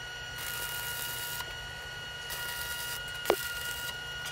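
Faint crackling hiss of a stick welder laying short tack welds on thin sheet-metal trim, coming in three bursts of about a second each, over a steady high whine. A single sharp tap a little after three seconds in.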